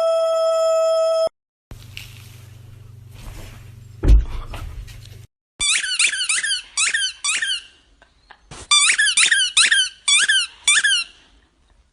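Rapid runs of sharp, high-pitched squeaks, each a quick chirp that dips in pitch, in two bursts with a short pause between. Before them a steady held tone cuts off abruptly, then comes a low hum with a single thump.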